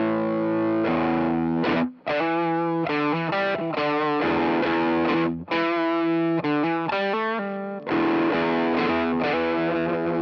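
Electric guitar, a Fender American Traditional Stratocaster, played through the SVI Sound Fuzz Genetic fuzz pedal into an ACS1 amp emulation of a Marshall Bluesbreaker, giving a thick fuzzed tone. Held notes open it, a riff of separate single notes with short breaks follows, and a chord rings out near the end.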